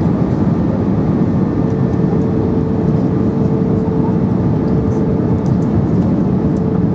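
Steady cabin noise of an Airbus A320 descending on approach, heard from a window seat: the even low roar of the engines and airflow past the fuselage. A faint steady hum sits in it from about a second and a half in to near the end.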